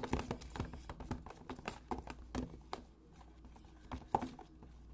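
Fingers pinching and kneading slime in a plastic tub, giving a rapid, irregular run of small clicks and squelches that thins out toward the end.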